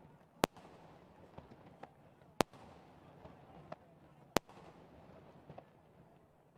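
Fireworks going off: three loud sharp bangs about two seconds apart, with fainter cracks and crackling in between.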